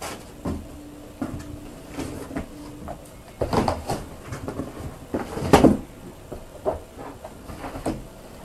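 Handling noise from rummaging in a cardboard shipping box and setting down a pack of paper: a run of irregular rustles and knocks, the loudest a little past halfway.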